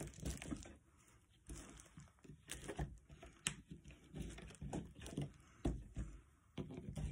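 Flat basket reed being worked by hand and with an awl, the spokes tucked under one another: faint rustling and crinkling of the reed strips and the plastic sheet under them, with scattered light clicks and knocks.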